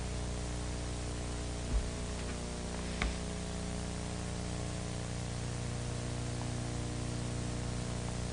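Steady hiss with a low electrical hum underneath, broken by two faint clicks about two and three seconds in.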